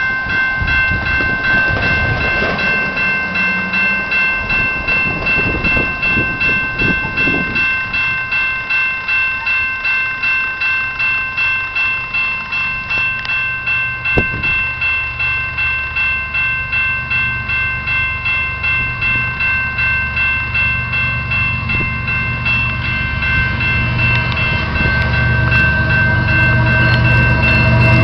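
Grade-crossing warning bell ringing in a steady rhythm, about two strokes a second. Under it, the rumble of the approaching GE ES44AC diesel locomotives grows louder near the end, with no horn sounded.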